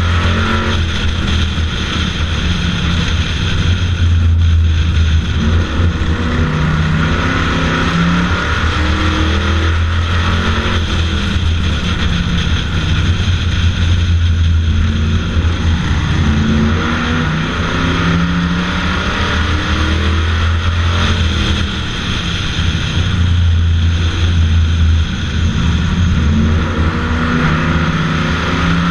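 Bomber-class stock car's engine racing at full throttle, heard loud from on board the car, its revs rising and falling in a repeating cycle about every nine to ten seconds as it accelerates down the straights and lifts into the turns, over a constant low drone and rushing air.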